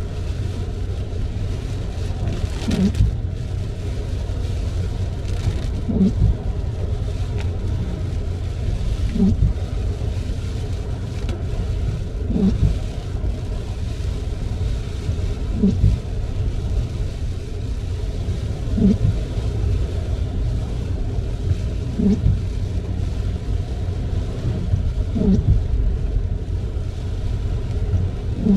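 Car windshield wipers sweeping about once every three seconds, each pass a short squeaky rub, over the steady low rumble of tyres on a wet road and rain on the car, heard inside the cabin. The wiper blades drag stiffly across the glass.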